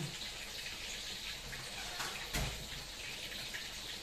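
Chayote and tofu stew simmering in a wok on a gas burner: a steady watery hiss, with one soft knock about two and a half seconds in.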